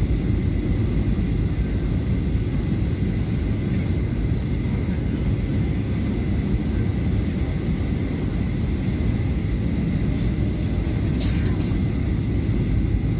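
Steady low rumble of a Boeing 737-800's CFM56-7B jet engines heard inside the cabin, with a faint steady whine above it. A few faint clicks come about eleven seconds in.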